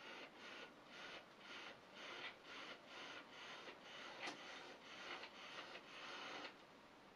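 Somfy motorised venetian blinds tilting their slats open and closed: a faint, rhythmic rasping from the motor and tilt mechanism, about three pulses a second, that stops about six and a half seconds in.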